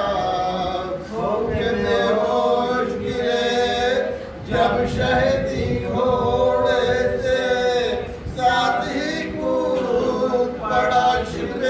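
Men's voices chanting a marsiya, a Shia Urdu elegy for Muharram, unaccompanied. Several voices sing long, drawn-out melodic phrases with short breaks between them, about 4 and 8 seconds in.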